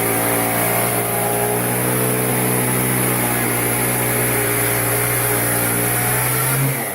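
Handheld power tool cutting, its motor running at a steady high speed. It winds down just before the end.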